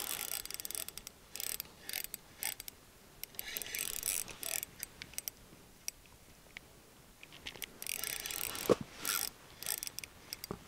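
A small ice-fishing reel being cranked to bring a hooked fish up through the ice. It makes a fast mechanical clicking in several bursts of a second or two, with a pause of a couple of seconds in the middle.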